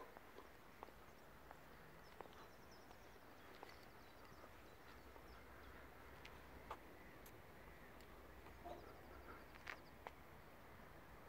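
Near silence: faint open-air ambience with a low hum, a few small clicks, and two brief series of faint high chirps from distant birds.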